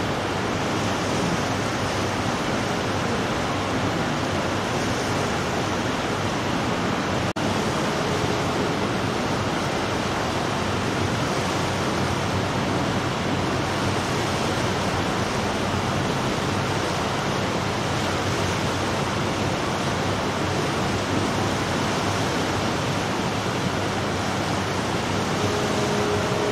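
Steady rushing noise of wind and water washing past a moving ship.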